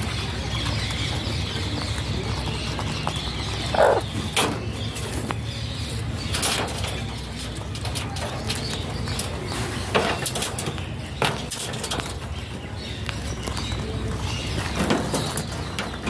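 Alexandrine parakeets in an aviary giving a few short, separate calls and clicks, about half a dozen, over a steady low background hum.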